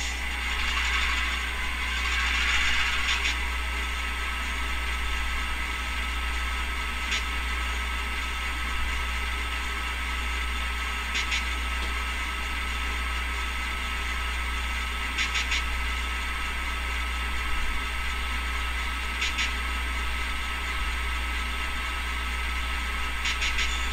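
Soundtraxx Tsunami2 sound decoder in an HO-scale diesel locomotive playing an idling diesel prime mover while the train line is charged with air. There is an air hiss in the first few seconds and a short double click about every four seconds.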